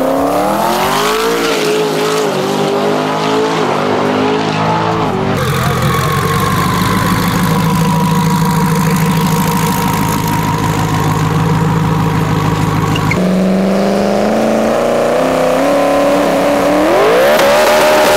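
Drag-racing truck's engine run hard, its pitch climbing and dropping. The sound changes abruptly about five and thirteen seconds in, and climbs steeply near the end.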